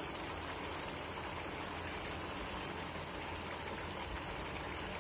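Chicken curry sizzling gently in a kadai over a low gas flame, a steady soft hiss.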